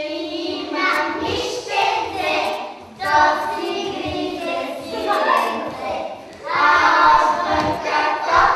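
A group of young children singing together as they play a circle game, in phrases of a few seconds each.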